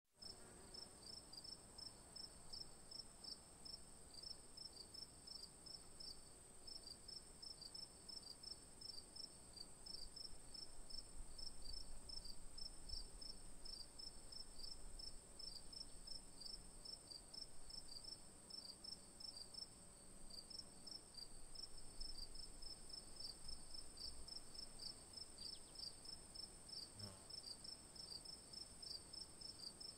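Faint insect chirping in quick, regular high-pitched pulses, about four or five a second, over a steady high-pitched whine.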